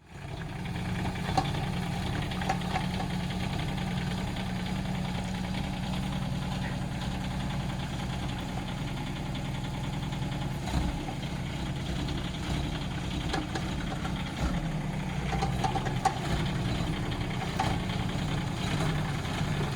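Kubota K008-3 mini excavator's small diesel engine running steadily, with a few scattered clunks as the machine works.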